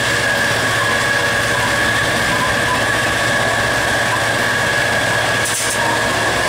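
EMD two-stroke diesel engine of a GT36HCW locomotive running steadily under power as the train gathers speed, heard from the cab, with a steady whine over the engine drone and the rumble of wheels on rail. A brief high hiss comes about five and a half seconds in.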